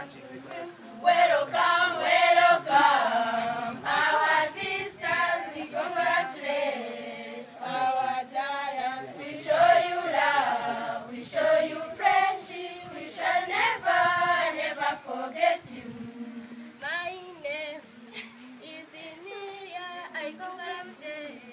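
Choir of schoolgirls singing together in parts without instruments. The singing is loud for most of the passage and drops to a softer level after about fifteen seconds.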